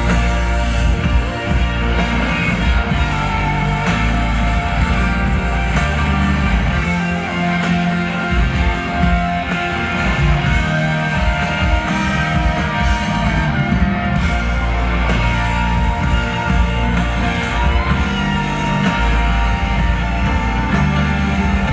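Live rock band playing loudly, an electric guitar to the fore over bass and drums.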